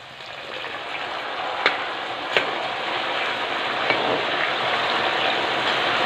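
Banana slices deep-frying in hot oil: a steady sizzle that grows slowly louder, with a few faint clicks as a metal slotted spoon stirs them.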